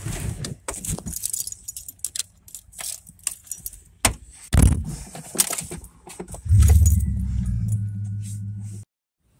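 Keys jangling and clicking as they are handled in the car, with a heavy thump about four and a half seconds in. About six and a half seconds in, the Holden SS ute's V8 engine starts and runs with a loud, steady, low note, until it cuts off abruptly near the end.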